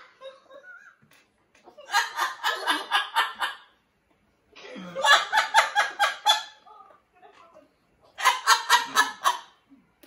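Jubilee hybrid macaw mimicking human laughter: three bouts of rapid, evenly pulsed 'ha-ha-ha', each lasting one to two seconds, with short pauses between them.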